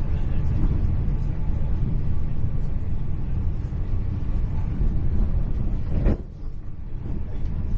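Low rumble of a Class 800 intercity train running on the rails, heard from inside the passenger carriage. About six seconds in there is a sharp knock, and the rumble drops for a moment before building again.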